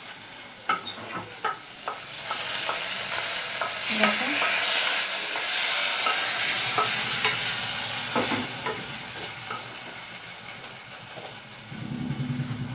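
Tomato and ginger paste frying in hot oil in a kadai and being stirred with a spatula, with a few light taps of the spatula against the pan. The sizzle grows loud about two seconds in as fresh paste hits the oil, then slowly dies down.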